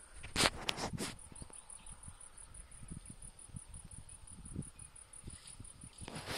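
An insect's high, steady trill, pulsing fast and evenly, in a dry field. A few sharp rustling clicks come about half a second to a second in, with soft low knocks scattered throughout.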